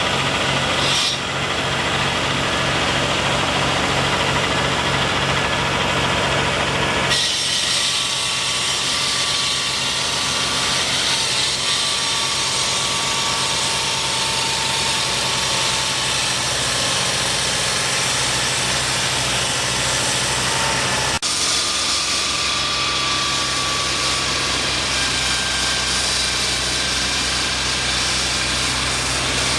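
Construction machinery engine running steadily, its sound changing abruptly about 7 seconds and about 21 seconds in.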